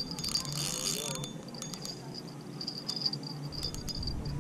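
Insect trilling in a high, pulsing tone, with a few sharp clicks.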